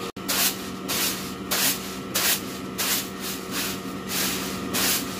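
Wheat grain swishing and rattling in a winnowing tray as it is tossed, in a steady rhythm of about one and a half strokes a second.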